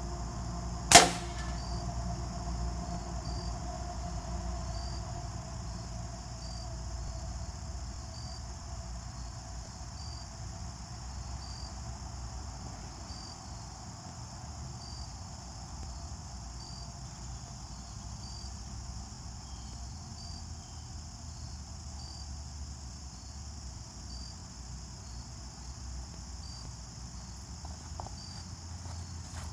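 A single rifle shot about a second in, sharp and loud with a short ringing tail, then crickets chirping steadily.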